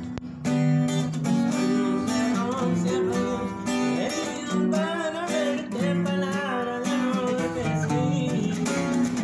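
Acoustic guitar music with a singing voice.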